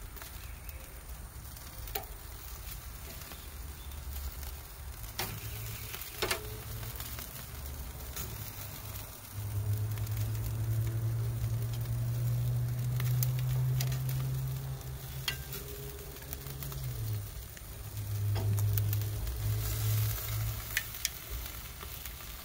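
Chicken wings sizzling on the grate of a charcoal grill, with scattered sharp pops. A low steady hum comes in about nine seconds in, drops out briefly, and returns near the end, louder than the sizzle.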